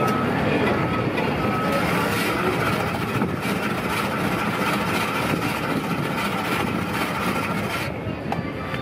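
Electric block-ice shaver running steadily, its blade grinding a block of ice into snow that falls into a paper cup. A short high beep repeats several times over it in the first two seconds. The shaving noise thins out near the end.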